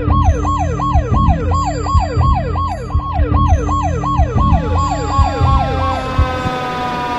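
Ambulance siren sounding a fast repeating wail that falls in pitch about three times a second, over a low rumble. A little past halfway the quick sweeps give way to slower tones sliding downward.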